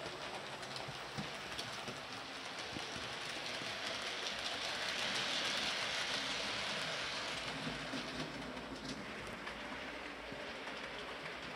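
Model railway train, a Britannia Class steam locomotive model hauling coaches, running along the track: a steady whirring hiss of motor and wheels on rail with a few faint clicks from the rail joints. It grows louder about halfway through as the train comes closer, then eases off.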